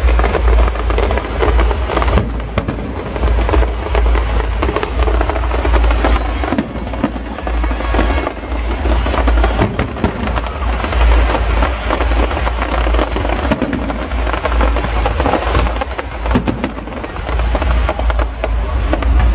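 Fireworks going off in rapid succession: many sharp bangs and crackles one after another, over a continuous low rumble.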